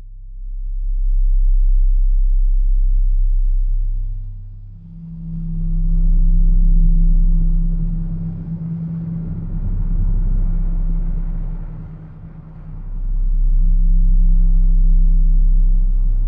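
A deep, low drone built of steady low tones, swelling and fading in slow waves about every six seconds, like a cinematic rumble sound effect.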